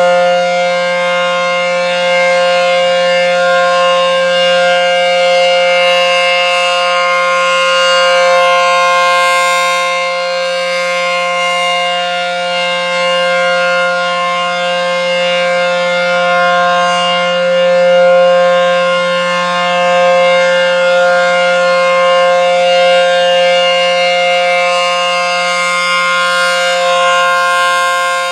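ACA outdoor tornado warning siren sounding its Alert signal: one steady, unwavering chord held throughout, its loudness slowly swelling and fading.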